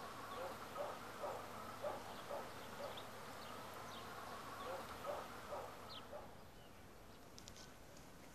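Faint outdoor ambience with a distant animal calling in short notes about twice a second, plus a few thin high bird chirps over a steady hiss. The calls stop about six seconds in and the background drops away.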